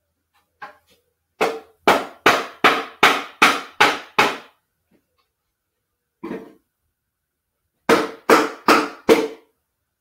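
Mallet blows knocking together the wooden joints of a beehive box that is a tight fit: a run of eight quick strikes, about two or three a second, then a single strike and four more near the end.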